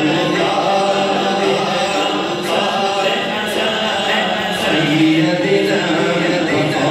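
A man's voice singing an unaccompanied Urdu naat into a microphone, amplified, drawing out long held notes.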